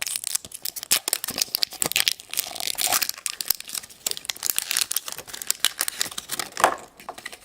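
Toy packaging being torn open and crinkled by hand, a continuous run of irregular sharp crackles and rips.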